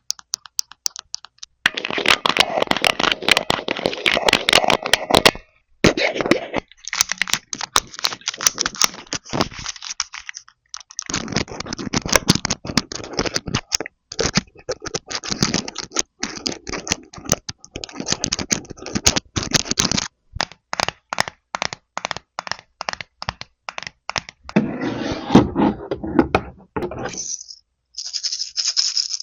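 Close-miked handling of a toy refrigerator and the small plastic play pieces inside it: quick runs of sharp clicks and taps, alternating with stretches of dense crackling and scraping, with brief pauses between.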